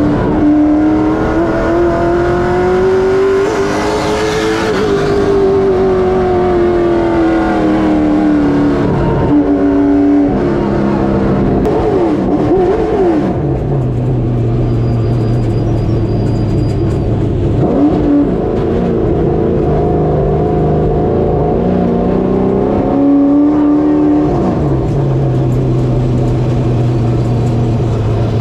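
Late model stock car's V8 engine heard from inside the cockpit, revs rising and falling at part throttle for the first ten seconds or so. About halfway through it drops to a steady low idle, broken by a quick throttle blip and then a short rev before settling back to idle near the end.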